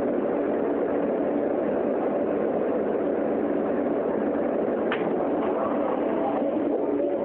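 Steady running noise inside a subway car as the train pulls slowly into a station and stops, with one short sharp clack about five seconds in as the doors open.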